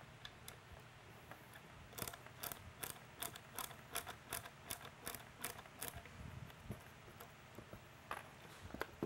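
Screwdriver backing out the dome screws of a Whelen L32 LED beacon: a run of regular sharp clicks, about three a second, lasting around four seconds, then a couple of stray clicks near the end.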